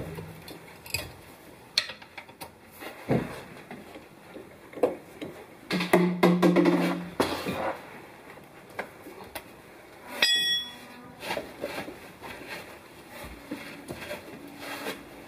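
Hand tools clicking and knocking against the metal of a Subaru rear differential as a plug is tightened with a wrench, with a sharp metallic clink that rings briefly about ten seconds in.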